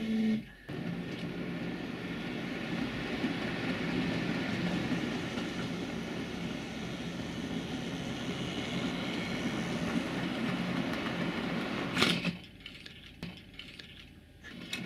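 H0 scale model of an LDE1250 (040-DF) diesel locomotive running on the layout's track: a steady whirr of its small electric motor and wheels on the rails. A sharp click comes about twelve seconds in, and after it the sound is quieter.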